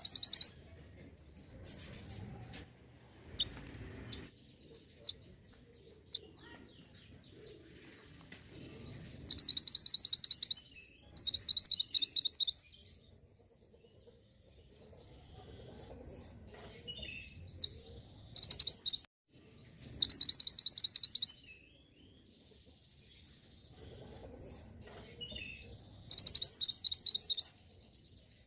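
Mantenan gunung song: fast, rapidly repeated high chattering notes in bursts of one to one and a half seconds, coming every few seconds and sometimes in close pairs, played as a lure track to draw a singing response from the bird.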